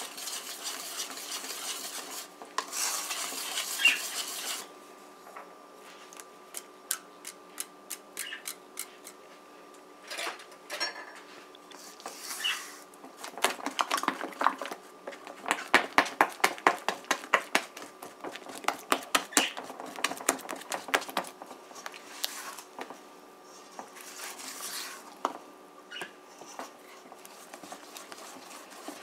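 Wire whisk beating cake batter in a stainless steel bowl: spells of quick, rhythmic clicking and scraping as the wires strike the bowl, several strokes a second, loudest about halfway through. A faint steady hum runs underneath.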